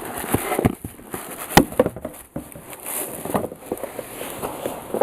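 Handling noise from a pair of sneakers being handled: irregular rustling with scattered clicks and knocks, the loudest knock about one and a half seconds in.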